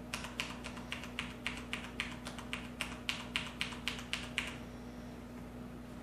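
Mechanical keyboard with linear Cherry MX Red switches being typed on: a run of about twenty quick, fairly soft keystrokes, four to five a second, with no switch click, stopping after about four and a half seconds.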